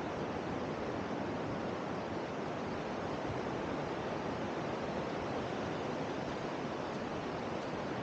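Steady, even rushing of sea surf mixed with wind, with no single sound standing out.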